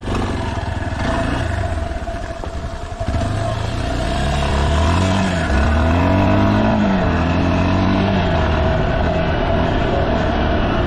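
Yamaha Serow 250's single-cylinder four-stroke engine under way, its revs climbing and dropping in several arcs as the bike accelerates.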